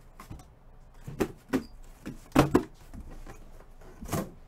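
A handful of short, sharp knocks and taps, about five, scattered irregularly, the loudest about halfway through.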